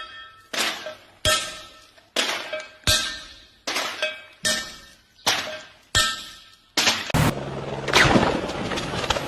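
Metal being struck over and over, about one blow every 0.8 seconds, each ringing and fading before the next. About seven seconds in, the strikes give way to a louder continuous noisy rush with a low hum.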